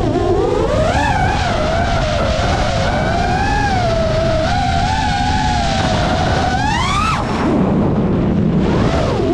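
FPV freestyle quadcopter's brushless motors whining, the pitch wavering up and down with the throttle, climbing steeply about seven seconds in and then dropping sharply, over a steady rush of air noise.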